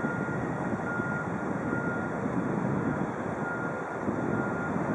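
Steady low rumble of outdoor harbour noise with wind on the microphone, and a faint high beep that comes and goes several times.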